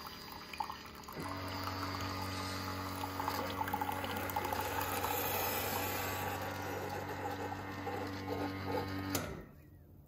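Keurig K-Mini Plus single-serve coffee maker brewing. Its pump starts humming about a second in while coffee splashes into the cup, then cuts off suddenly near the end as the brew finishes.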